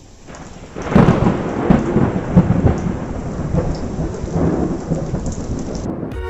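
Thunderstorm: a sudden loud rumble of thunder breaks about a second in and rolls on over the noise of wind and rain.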